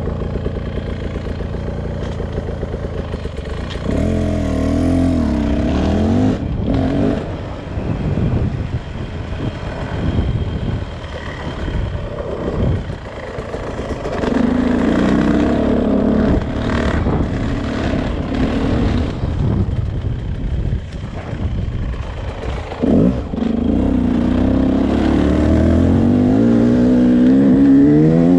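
Beta RR 300 single-cylinder two-stroke enduro engine running and being revved, its pitch rising and falling several times, with a climb in revs near the end.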